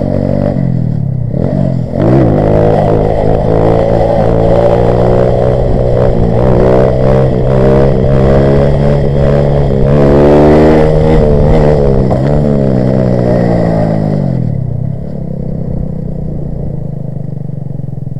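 Grom-clone mini motorcycle's small single-cylinder engine revving hard under throttle, its pitch wavering up and down as the throttle is worked, loudest about ten seconds in. Near the end it drops back to a lower, steady run.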